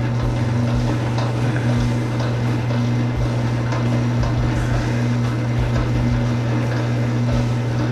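Motorized wire-stripping machine running steadily: a constant motor hum with a fainter tone that pulses on and off a little more than once a second.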